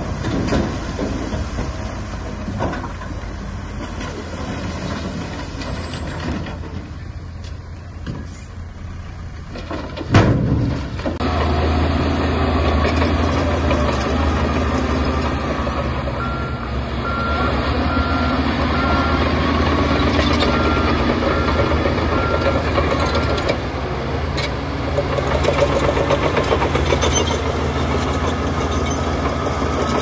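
Diesel engines of a Shantui crawler bulldozer and dump trucks working on site, with a sudden loud knock about ten seconds in. After the knock the engine sound is louder and steadier. For several seconds in the middle, a truck's reversing alarm beeps about once a second.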